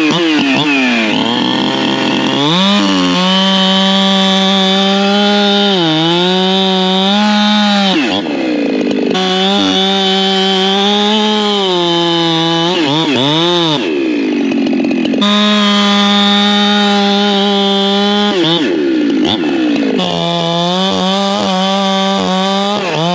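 Holzfforma G372XP Pro two-stroke chainsaw cutting through a log at full throttle, a steady high engine note. The revs drop and climb back up several times, most deeply about a third of the way in, a little past halfway, and near the end.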